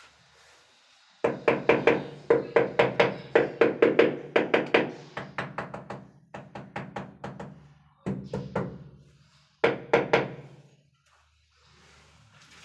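Ceramic wall tile being knocked repeatedly to bed it into the adhesive: quick runs of sharp knocks, about six a second, that stop and start several times, with a low ringing hum under them.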